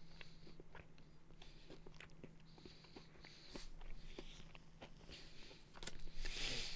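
A person chewing and crunching food close to a microphone: faint, irregular little clicks and crunches, with a breath about six seconds in.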